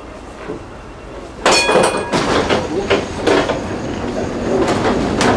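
Old tram pulling away: a sharp metallic clang that rings on briefly about a second and a half in, then a series of knocks and clacks from the running gear, with a rumble building up near the end.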